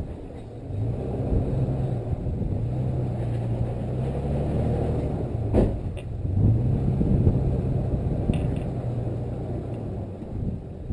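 Off-road vehicle engine working at low speed, its pitch rising and falling repeatedly as the throttle is blipped, with one sharp knock about halfway through.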